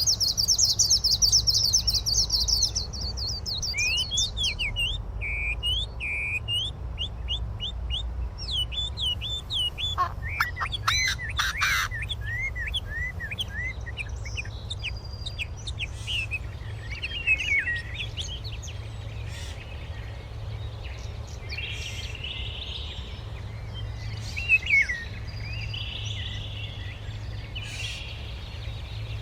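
Wild birds singing and calling: a rapid high trill for about the first three seconds, then a string of short chirps and sliding whistled notes, with a steady low hum underneath.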